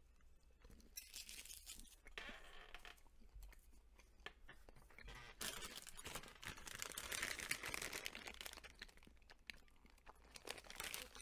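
Faint crinkling and rustling of Hershey's Kisses candy packaging being handled, with a longer, louder stretch of crackling in the middle.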